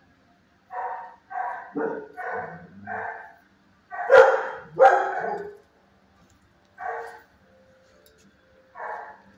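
A dog barking in a kennel: a quick run of five barks, two louder barks near the middle, then two single barks about two seconds apart.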